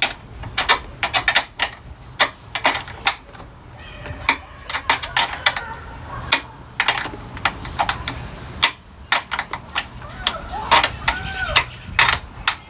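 Irregular sharp clicks and knocks of hand work on a car battery's hold-down, over a low steady hum.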